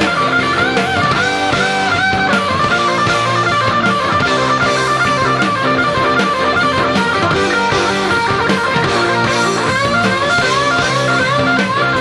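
Live electric rock band with two or more electric guitars, bass and drums. A lead electric guitar plays a string of short, repeated licks that bend up and fall back over the steady band.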